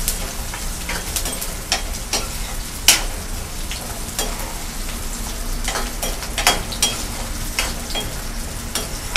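Sliced carrots and onion sizzling in hot oil in a steel kadai over a high gas flame, while a steel spoon stirs them, scraping and clinking against the pan. The sharpest clink comes about three seconds in.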